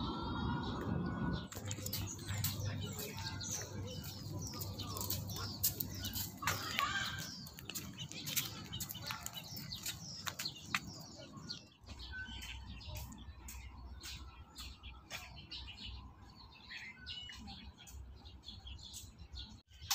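Many birds chirping and calling at once, a dense chorus of short, high, overlapping chirps. It gets louder about a second and a half in and drops back after about twelve seconds.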